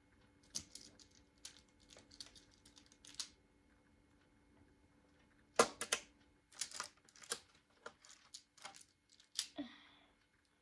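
Plastic magnetic building tiles clicking and clacking as they are snapped together and set down, in irregular single clicks with a louder clack about halfway through.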